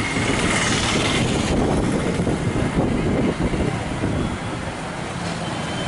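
Steady low rumbling background noise of a busy outdoor street-food market, with a brief hiss from about half a second in, lasting about a second.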